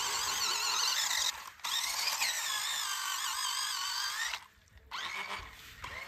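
Toy RC monster truck's small electric motor and gearbox whining, the pitch wavering as the truck pushes through water. It cuts out briefly about a second and a half in and again after about four seconds, then comes back fainter.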